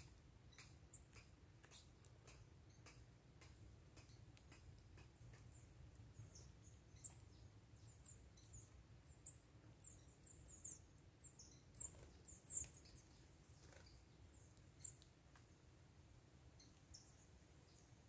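Small birds giving short, high-pitched chirps, sparse at first and thickest around the middle, over faint scattered clicks.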